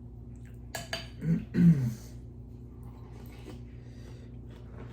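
Eating at a table: a few utensil clicks against a bowl a little under a second in, then two short hummed "mm" sounds, the second the loudest, followed by a few faint short noises over a steady low background hum.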